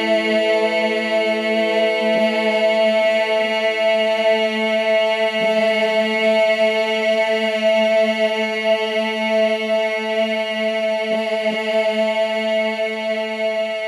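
A woman's voice intoning a long, steady vowel "E" on one low pitch, humming-like and rich in overtones, as a vowel-vibration exercise meant to be felt in the throat. It breaks off briefly and re-enters a few times (about two, five and eleven seconds in), and a second, higher tone sounds along with it for the first five seconds.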